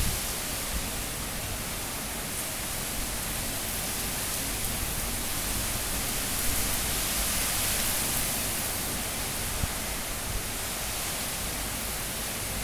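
Sustained high wind of a super cyclone, a steady rushing noise that swells slightly about halfway through.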